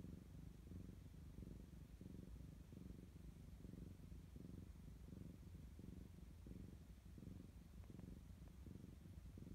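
Calico cat purring softly while curled up asleep, a low, steady, pulsing purr.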